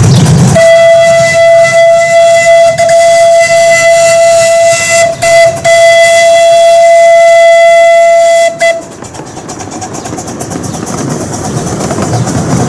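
Steam whistle of the miniature 15-inch-gauge 4-4-0 live-steam locomotive No. 90 blowing one long, steady blast of about eight seconds, broken twice briefly near the middle. After it stops, the rumble of the moving train builds up.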